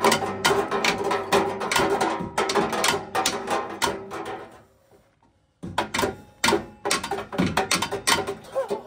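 Hammer blows on a vehicle's metal exhaust, several sharp strikes a second with a metallic ring, stopping for about a second midway and then resuming.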